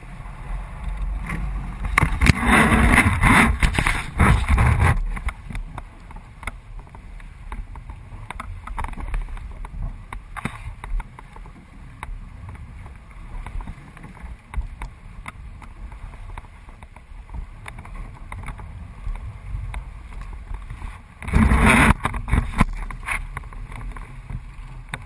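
Water splashing against a small boat's hull, with wind rumbling on the microphone. There are two louder rushes of splashing noise, one a couple of seconds in lasting about three seconds and a shorter one near the end.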